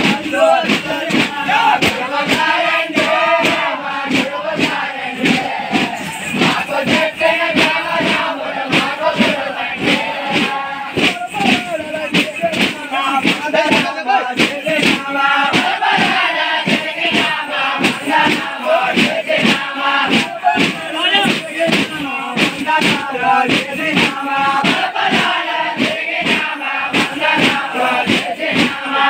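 Thappeta gullu folk performance: small hand-held frame drums (tappetas) beaten in a steady, fast beat while a group of men sing and chant loudly together.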